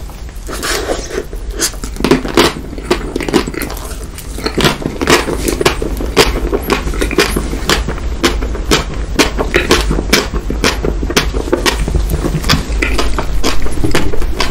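Close-miked chewing of a mouthful of chocolate layer cake: wet mouth clicks and smacks, about two to three a second.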